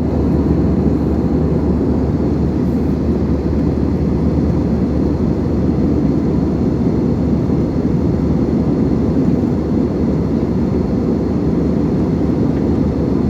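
Steady engine and airflow noise inside a passenger jet's cabin, an even low rush with no change in pitch.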